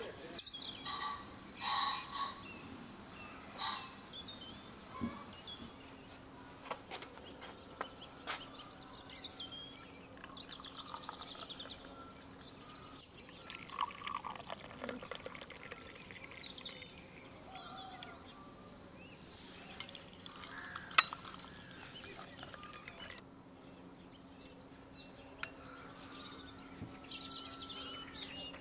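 Small birds chirping and singing on and off over a faint steady hum. A metal pot lid clatters near the start, tea is poured into a glass about halfway through, and a few glasses clink sharply on saucers later on.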